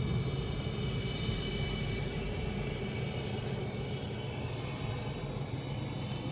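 The NASA ER-2's jet engine idling on the runway: a steady high whine over a low rumble, muffled as heard from inside a car behind the aircraft.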